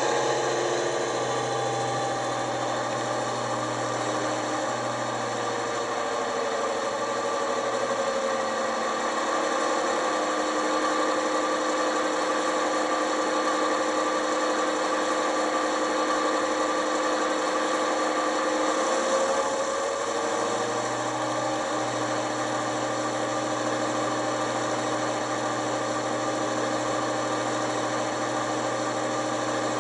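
Digital sound decoder in an OO gauge model Class 55 Deltic locomotive playing the Napier Deltic diesel engine running steadily, heard through the model's small speaker. The engine pitch shifts slightly near the start and again about two-thirds of the way through.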